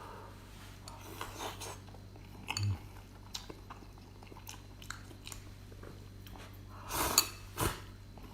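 A person chewing and biting into beef meatballs, with faint clicks of a utensil against a dish; a louder burst of wet chewing comes about seven seconds in.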